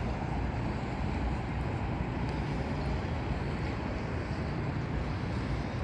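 Steady outdoor background rumble, low-pitched and even, with no distinct events.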